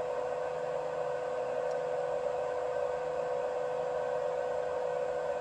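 BIBO Touch X 3D printer running as a print gets under way: a steady whine over an even hiss.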